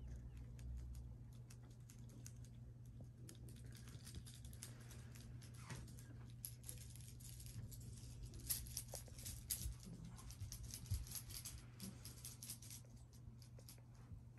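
Faint rustling and small clicks as a British Shorthair kitten shifts about in a chunky knit blanket, busiest through the middle with a few sharper ticks, over a steady low hum.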